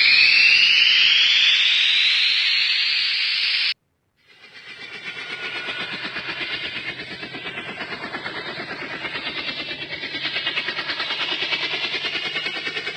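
Two ringtone sound effects played back from a phone ringtone app. The first, a sound of rising sweeping tones, stops abruptly about four seconds in; after a brief silence the next fades in, a steady hiss that pulses about four times a second.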